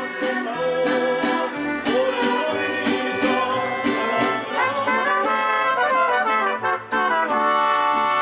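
Live band with trumpets playing a song over a steady beat.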